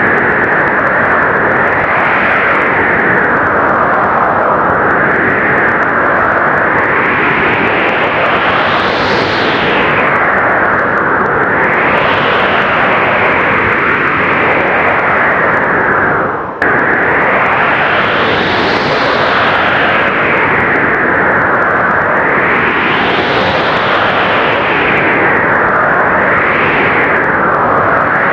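Strong blizzard wind blowing without a break, its hiss swelling and easing in gusts every few seconds. It dips for a split second about sixteen seconds in.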